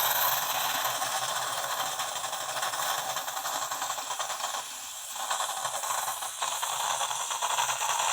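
Bosch Tassimo coffee machine hissing steadily with a light rattle as it runs a milk pod, easing briefly about five seconds in. The hiss is pressurized air escaping through the pod.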